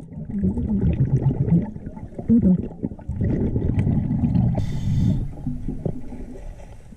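Muffled underwater noise from a scuba dive: low rumbling and gurgling with wavering low tones, and a short burst of hiss about four and a half seconds in.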